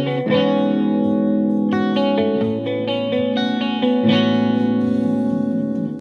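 Electric guitar playing a riff of sustained chords through a valve amplifier fitted with JJ ECC83S (12AX7) preamp tubes, as a sample for judging the tubes' tone.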